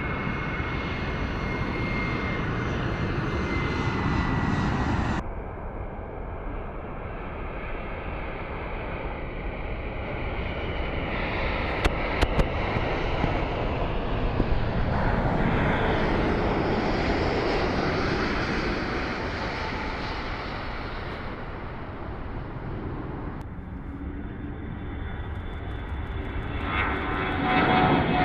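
Airliner engine noise from passing aircraft, in several short segments that cut abruptly from one to the next. A high whine falls slowly in pitch over the first few seconds, and a few sharp clicks come about twelve seconds in.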